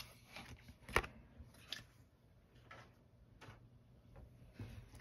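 Tarot cards being handled and set down on a wooden tabletop: a few faint taps and clicks, the sharpest about a second in.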